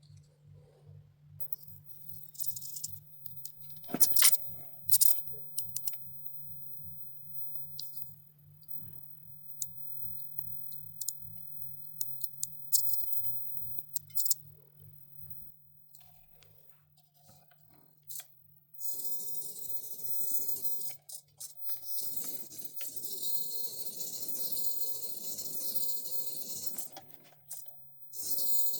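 Hand work on a small plastic RC car part: sharp clicks and snips of trimming, then from about two-thirds in a steady hiss.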